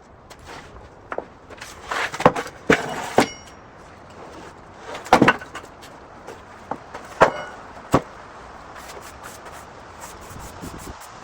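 Knocks and thumps of a freshly sawn red cedar slab being handled and lifted off the log, about seven irregular hits, two of them with a short ringing tone.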